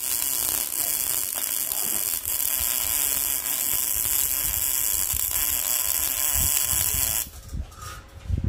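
Gas-shielded MIG welding arc from a Proteck 250 welder, running steadily as a dense crackling hiss while a bead is laid on steel. It cuts off about seven seconds in.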